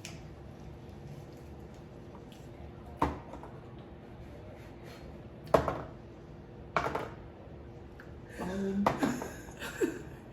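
Tableware clinking and knocking as it is handled on a hard surface: single sharp knocks a few seconds apart, then a busier clatter near the end.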